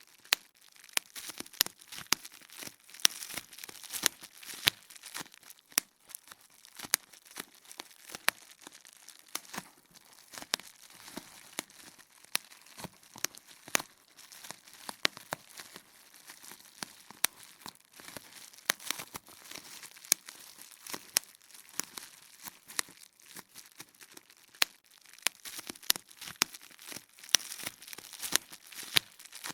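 Bubble wrap being popped: irregular sharp pops, a few a second, with the plastic crinkling between them.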